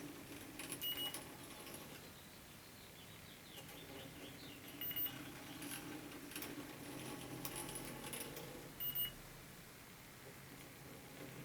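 Fieldpiece DR82 electronic refrigerant leak detector on high sensitivity, giving a short high beep about every four seconds, three times, over a steady low hum, with faint handling clicks and rattles. It gives no leak alarm.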